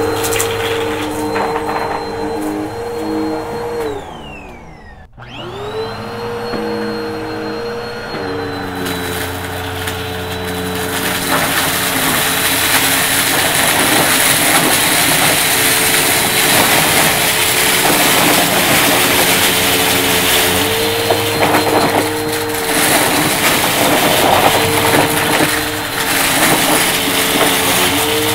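Upright bagless vacuum cleaner running on a thick shag rug. About four to five seconds in, the motor's whine drops away almost to a stop and comes straight back up. From about ten seconds in, a loud rattling crunch of dry debris being sucked up joins the motor.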